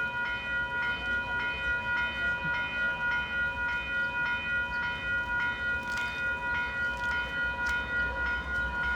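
A railway bell rings steadily at about three strokes a second, over the low rumble of CP 101's approaching diesel locomotives.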